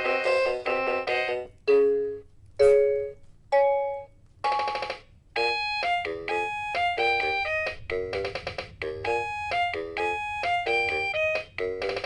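Anpanman Pikapika toy keyboard playing electronic beeping tones: a quick melody that breaks off about a second in, three single notes struck about a second apart, then a steady tune from about halfway through.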